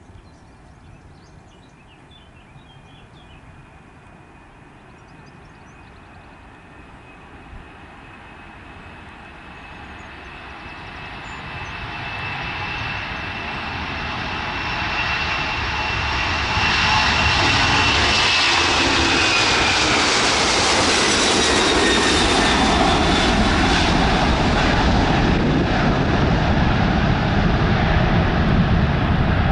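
Boeing 767-300's twin General Electric CF6 turbofans at takeoff thrust during the takeoff roll and climb-out: a high fan whine and jet noise that grow steadily louder as the airliner accelerates toward the listener. As it passes, a little over halfway in, the whine drops in pitch and a deep, steady jet roar takes over as it climbs away.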